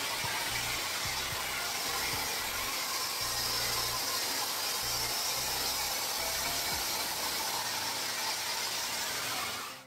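Hot air brush (Cecotec Bamba CeramicCare SuperSonic) running, its fan blowing a steady hiss of hot air through the hair. The hiss cuts off abruptly right at the end.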